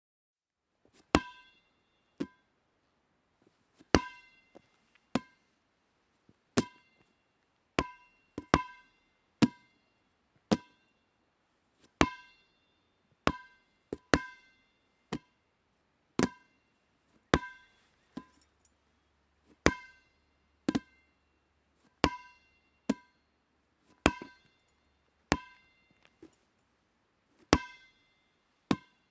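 Dodgeball bouncing: a string of separate sharp bounces, roughly one a second and sometimes two in quick succession, each with a brief hollow ring.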